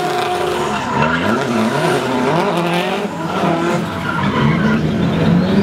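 Drift car sliding through a corner, its engine revving up and down several times with tyre squeal from the spinning rear wheels.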